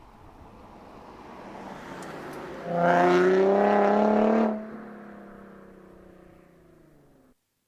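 Infiniti G35's VQ35 V6 through a Motordyne Shockwave exhaust with ART pipes. It swells gradually, then the throttle opens for about two seconds of loud, rasping exhaust note. The note then drops in pitch and fades away before cutting off abruptly.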